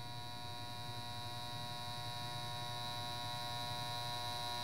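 Steady electrical hum with a high whine over it, slowly growing louder, with no ticking.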